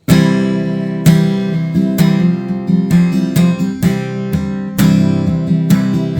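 Acoustic guitar strumming chords, a strong strum about once a second, starting abruptly: the instrumental introduction to a sung hymn.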